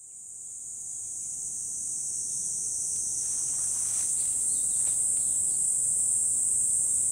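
A dense, steady high-pitched chorus of cicadas buzzing in the trees, fading in over the first couple of seconds.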